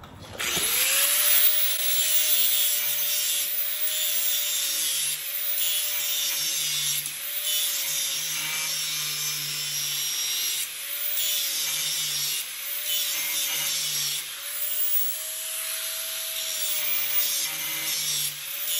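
Electric angle grinder starting up about half a second in and grinding the cutting edge of a steel flail-mower hammer blade to sharpen it. The motor whine wavers in pitch, and the grinding noise dips briefly several times as the disc is eased off and pressed back onto the blade.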